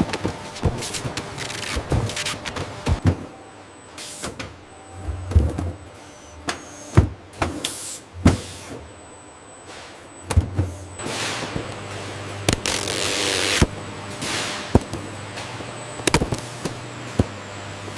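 Factory machinery working: irregular mechanical clacks and knocks, two hissing air blasts a little past the middle, and a low machine hum that comes and goes.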